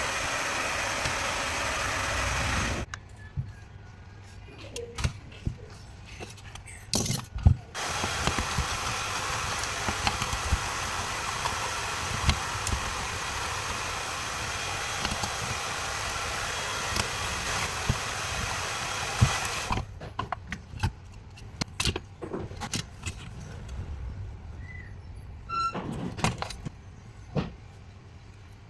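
A steady rushing noise with no clear pitch, like a machine blowing air. It runs for about three seconds, stops, then comes back for about twelve seconds. Between and after the two runs there are small clicks and knocks.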